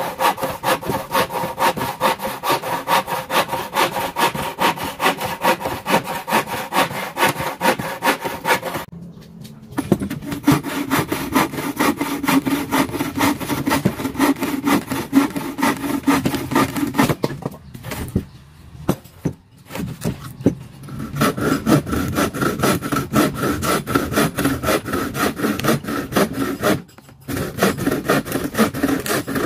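Wooden frame saw cutting wood with rapid back-and-forth strokes. It stops briefly about nine seconds in, for a couple of seconds around the eighteen-second mark, and once more near the end.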